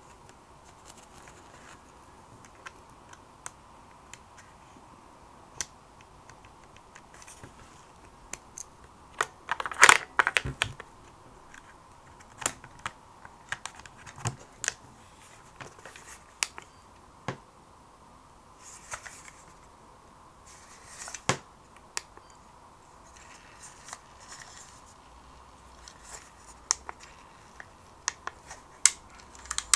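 Irregular small plastic clicks and taps from a Sony Walkman WM-EX610 cassette player's casing being handled and pressed while its battery cover is fitted, with a quick cluster of louder clicks about ten seconds in.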